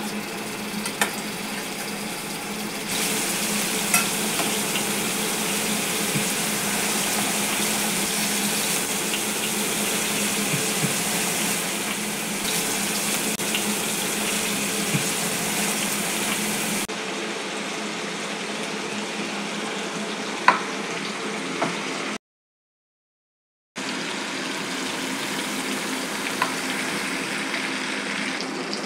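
Marinated king fish (neymeen) steaks sizzling in hot oil in a nonstick frying pan: a steady hiss, with a few sharp clicks of the spatula against the pan. The sound cuts out for a moment about three-quarters of the way through.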